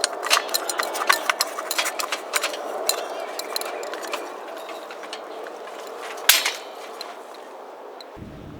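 Utensils clinking and tapping against dishes and cookware in a run of quick clicks, with one louder knock about six seconds in.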